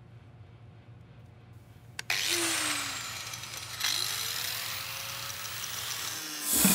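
A handheld power tool's motor switched on with a click about two seconds in, whining as its pitch falls, then revved again with a rising whine near the four-second mark.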